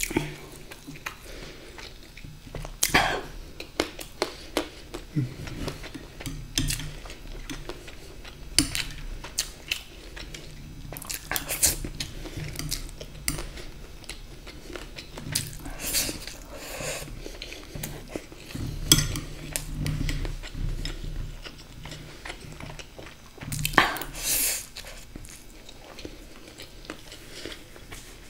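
A person chewing a mouthful of sweet vermicelli (seviyan), with a metal spoon clinking and scraping against a glass bowl now and then.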